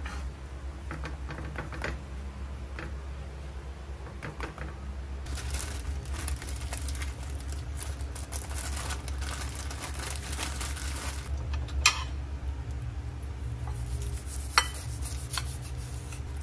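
Paper wrapping crinkling and rustling as a tortilla wrap is folded into it by hand, with a few sharp knocks near the end, over a steady low hum.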